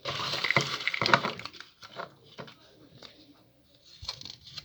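Paper rustling as drawing sheets are handled and set aside, loudest in the first second and a half, followed by a few light scattered taps and clicks.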